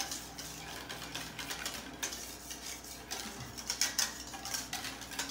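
Wire whisk beating Greek yogurt and molasses in a metal mixing bowl, its wires clicking and scraping against the bowl in quick strokes. The clicks get a little louder about four seconds in.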